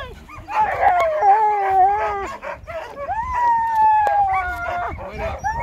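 Harnessed sled dogs howling and whining in long, slowly falling cries, two voices overlapping at times. It is the excited noise of dogs held back before the start of a run.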